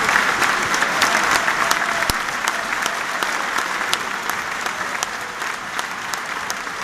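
A football stadium crowd clapping in unison, a dense steady applause with sharp single claps close to the microphone, easing slightly toward the end. It is the tribute applause in the 8th minute.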